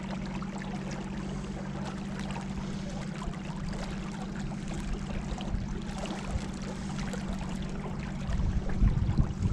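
River water rushing and splashing along a kayak on the Colorado, with a steady low hum underneath and a few louder low thumps near the end.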